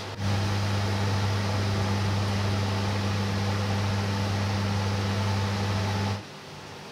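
A steady low electrical hum with a few higher overtones. It comes in abruptly at the start and cuts off sharply near the end, leaving a fainter hum behind.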